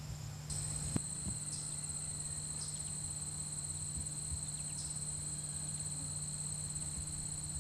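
An insect, such as a cricket, calling in a high, continuous trill that starts about half a second in, over a low steady hum, with one faint knock about a second in.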